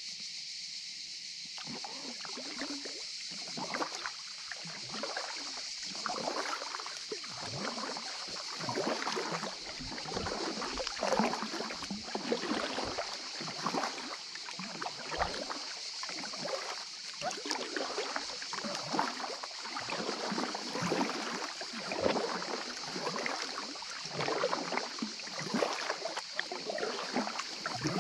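Kayak paddle strokes dipping and splashing in calm river water, one after another at an uneven pace, over a steady hiss. The paddling starts about a second and a half in.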